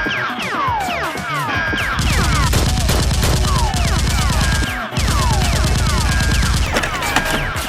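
Rapid automatic gunfire sound effects over action background music, with repeated falling whistling tones. The firing grows heavy about two seconds in, breaks off for a moment near the middle, and eases off near the end.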